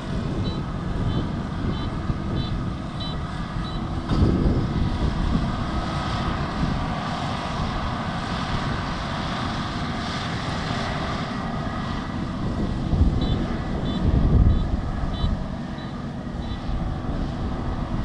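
Kubota DR6130SX combine harvester's diesel engine and threshing machinery running steadily while harvesting rice, with wind gusting on the microphone. Twice a short run of evenly spaced high beeps sounds, near the start and again about two-thirds of the way through.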